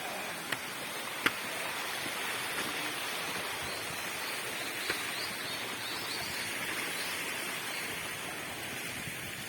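Steady rush of a waterfall, with a few sharp clicks over it.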